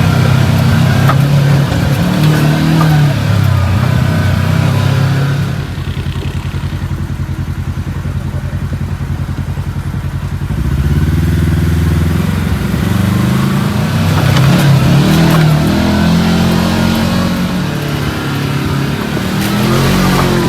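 Kawasaki KRX 1000 side-by-side's parallel-twin engine under way, revving up and down with the throttle. About five seconds in it drops to a lower, even pulse for several seconds, then revs up again.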